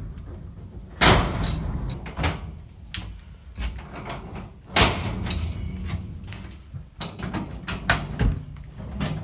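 Medium-voltage switchgear worked by hand, an operating lever turning the switch mechanism. There are two loud metallic clacks, about a second in and again about halfway, with lighter clicks and rattles between.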